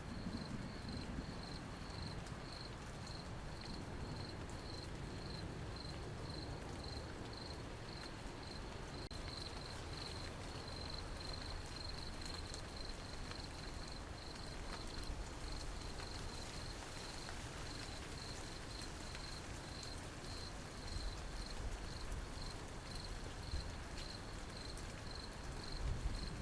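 Steady rain with a cricket chirping in a regular high-pitched pulse, about twice a second. A low rumble begins to rise near the end.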